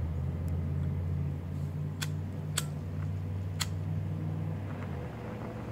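A lighter being struck, three sharp clicks in under two seconds, while lighting a cigarillo. Under it a steady low hum runs on and stops shortly before the end.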